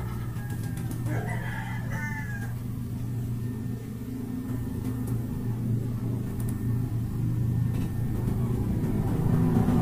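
A steady low hum, with a brief call of wavering pitch about a second in that lasts about a second and a half. The sound grows louder near the end.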